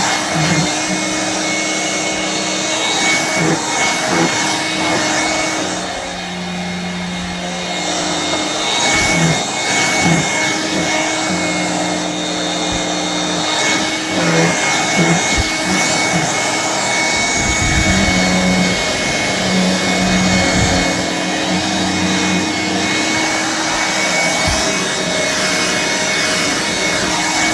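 1985 Hoover Brush Vac hand vacuum running steadily with an even, high motor whine. Its roller brush rubs and scrubs over mattress and pillow fabric, so the lower sound shifts as it is worked back and forth.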